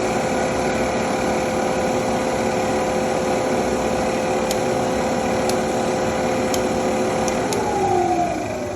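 Jet JTM-4VS variable-speed vertical milling machine running steadily, its three-phase motor and spindle giving a constant whine over a mechanical hum. Near the end the pitch falls as the spindle slows down.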